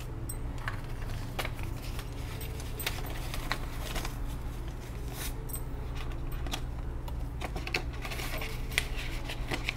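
Paper banknotes being handled and counted by hand: crisp rustling and flicking of the bills, with scattered small clicks and taps, over a steady low hum.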